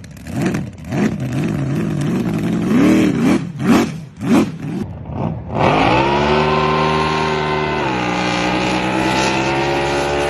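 An engine revving unevenly, then spinning up about six seconds in and running at a steady pitch, which drops a step about two seconds later.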